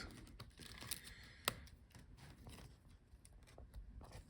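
Faint small clicks and handling noises from unlatching and pulling laptop ribbon-cable connectors off the motherboard, with one sharp click about a second and a half in.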